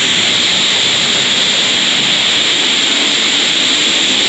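Waterfall pouring just outside a stone tunnel: a loud, steady rush of falling water, heaviest in the hiss range, like white noise.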